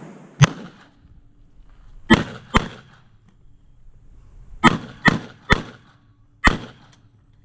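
Seven gunshots fired in an uneven string, each a sharp crack with a short echo.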